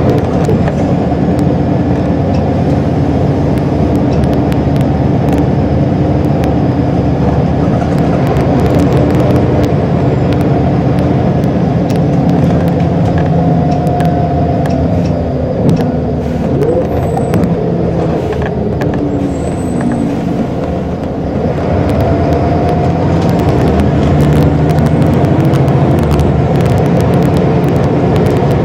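Scania L94UB single-deck bus heard from inside while under way: its diesel engine and ZF automatic gearbox running, with the engine note sliding in pitch past the middle as the bus eases off, then building again as it pulls on. Short rattles and clicks from the bus body come throughout.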